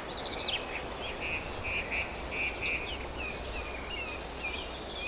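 Forest ambience: several birds calling and singing, with short chirps and a repeated trilling call near the middle, over a steady low background hiss.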